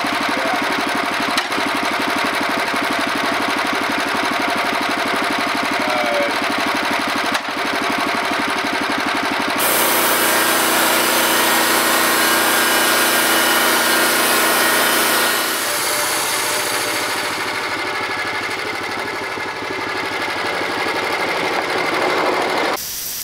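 Gas engine of a Norwood portable bandsaw mill running steadily under load as its band blade saws through a cedar log. The sound changes abruptly about ten seconds in, with a brighter hiss over a steadier engine note, and it drops off suddenly just before the end.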